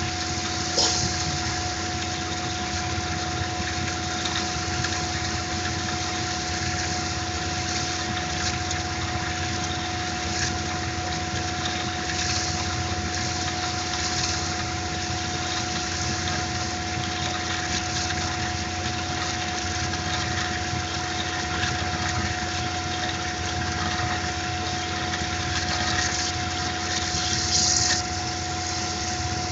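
Tormach PCNC 1100 CNC mill cutting a pocket in aluminium: a steady whine of two held tones over the hiss of flood coolant, with brief sharper cutting noises now and then, the strongest a little before the end.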